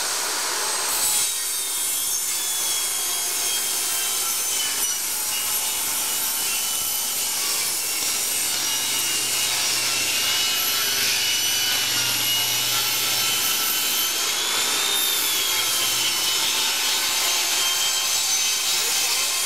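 A saw cutting through wood, a continuous rasping with a thin, wavering high whine over it.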